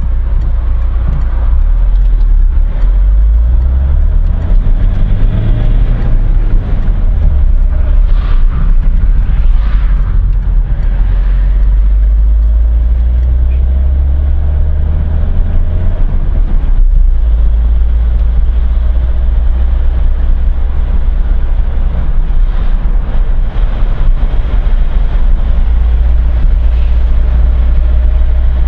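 Car cabin noise while driving: a steady low engine and road rumble, with the engine's pitch rising and falling a few times as the car speeds up and slows.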